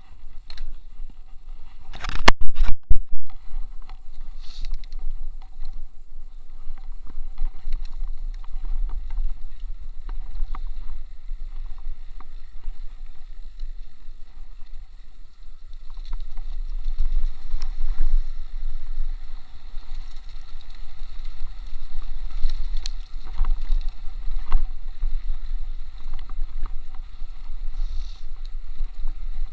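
Mountain bike rolling fast downhill on a dirt track, heard from a chest-mounted action camera: a steady low rumble with scattered clicks and rattles from the tyres and frame. There is a burst of loud knocks about two seconds in.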